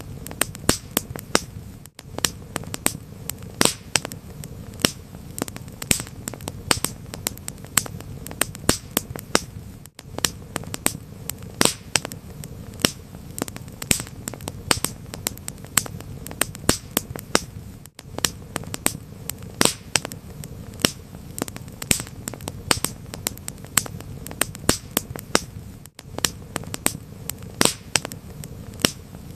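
Wood fire crackling: frequent sharp pops and snaps over a steady low rumble, with a brief dropout about every eight seconds.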